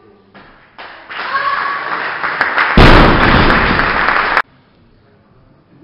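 Spectators clapping and cheering for a completed snatch. Nearly three seconds in, a loaded barbell with bumper plates is dropped onto the lifting platform with a heavy thud, the loudest sound here. The clapping continues until it breaks off abruptly about a second later.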